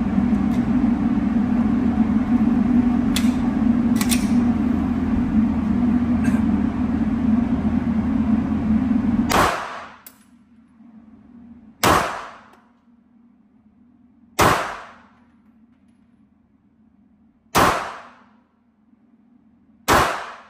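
A steady loud hum, then five single shots from a Glock 48 9mm pistol, fired slowly about two and a half seconds apart, each with a short ringing tail. The hum cuts off suddenly at the first shot.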